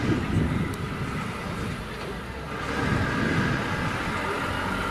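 Heavy diesel truck engine, a Volvo FH tractor unit hauling a low-loader trailer, running as it pulls slowly past. It is a steady low rumble that grows louder about two and a half seconds in.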